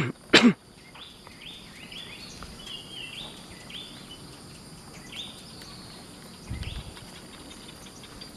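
Outdoor ambience: a bird calling with short, repeated rising notes over a steady high-pitched insect drone. Two loud short sounds come in the first half-second, and a low thump comes near the end.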